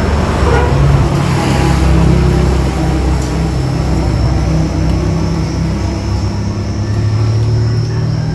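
A motor vehicle's engine running close by, a loud low hum that edges slightly higher in pitch near the end.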